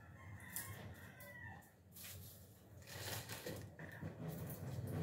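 A faint, drawn-out call in the background for the first couple of seconds, its pitch bending and falling. From about two seconds in, dry papery garlic skins rustle and crinkle as they are picked over by hand.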